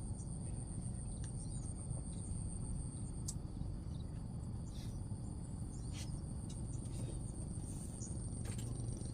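Steady high-pitched insect drone over a low rumble, with scattered faint clicks.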